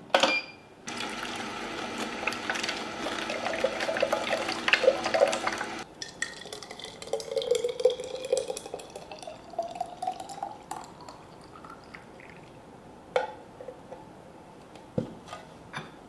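A slow juicer's lid clacks shut and the machine runs, crackling as it crushes carrots, until it stops abruptly. Then juice is poured into a glass bottle, the pitch rising as the bottle fills, followed by a couple of knocks as glass is set down.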